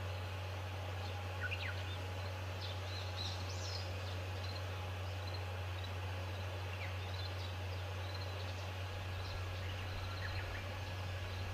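Small birds chirping on and off, short high calls scattered throughout, over a steady low hum and outdoor background noise.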